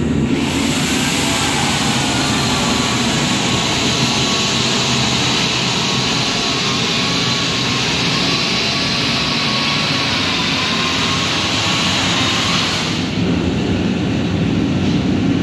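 Portable forced-air space heater running with a steady roar and low rumble. A loud hiss with a faint high whine on top sets in just after the start and drops away about two and a half seconds before the end.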